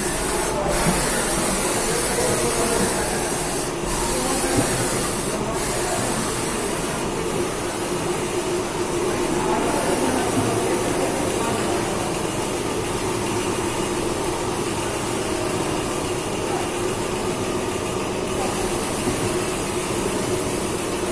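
MTAB CNC vertical milling machine running: a steady machine hum with a high hiss over it that dips briefly a few times.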